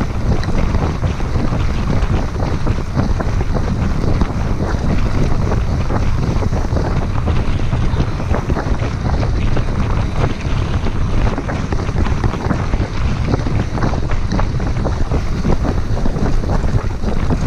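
Wind buffeting the action camera's microphone with a heavy rumble, over the crunch and constant small rattles of a Specialized Diverge gravel bike's tyres rolling fast on a gravel road.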